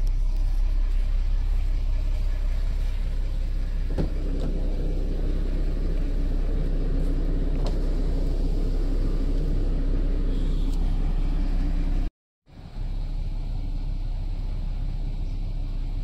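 Volkswagen Passat R36's 3.6-litre VR6 engine idling, a steady low rumble, with the air conditioning running at full fan. A couple of faint clicks sit on top, and the sound cuts out for a moment about three-quarters of the way through.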